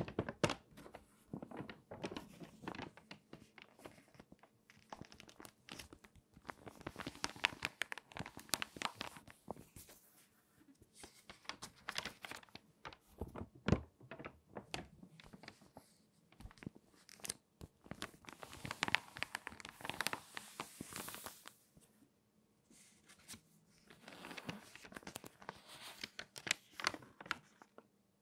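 Crinkly, water-damaged magazine pages being turned by hand, crackling in about five bursts of dense crinkles with short quiet gaps between turns.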